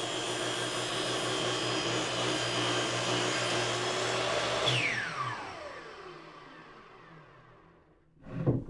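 DeWalt miter saw with a 12-inch 80-tooth Diablo blade running steadily at full speed, with a hum and a high whine. About halfway through, the motor is switched off and the blade spins down, its whine falling steadily in pitch and fading away. A short knock comes near the end.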